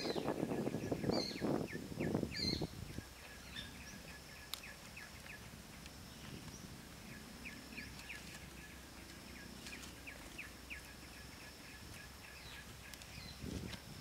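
Large dry-edged leaves rustling and crackling as they are handled and laid on the ground, for about the first three seconds and again near the end. In between it is quieter, with high, quick chirps repeating in the background.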